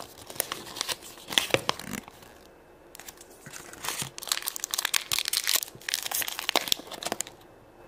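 Crinkly plastic wrapper of a Shopkins blind pack being crumpled and torn open by hand, with rustling of the folded paper collector's guide. The crinkling comes in two spells, one at the start and a longer one from about four seconds in.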